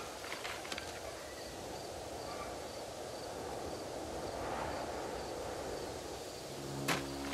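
Outdoor field ambience with an insect, cricket-like, chirping high and regular at about three chirps a second. A single sharp strike, fitting a hoe blade hitting the soil, comes near the end, just as soft music comes in.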